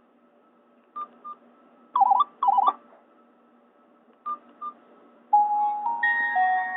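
Nokia N81 ringtones played through a Nokia 216's speaker. There are two pairs of short beeps with two warbling chirps between them, and then an electronic ringtone melody of held notes begins about five seconds in.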